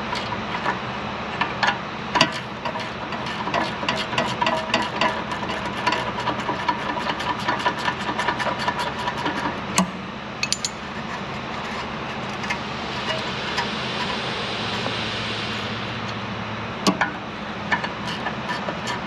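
Hand tools working on a Ford Fiesta ST150's rear brake caliper carrier bolts: rapid metallic clicking and knocks, with a steady hiss from about thirteen to sixteen seconds in.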